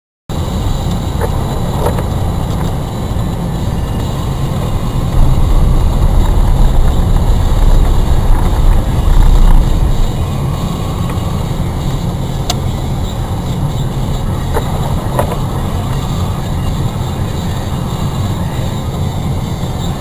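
Steady low rumble of a car driving on a snow-covered road, picked up by a dashcam inside the cabin. It swells for a few seconds about five seconds in.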